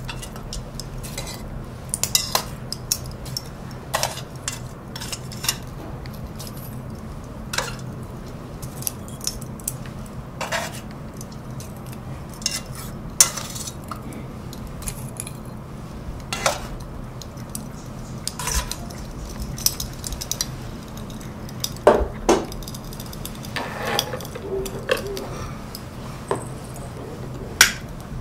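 Irregular clinks and taps of long metal fire chopsticks picking up and setting down pieces of charcoal, with the charcoal pieces knocking against each other as they are stacked. There are a few quick clusters of clinks late on.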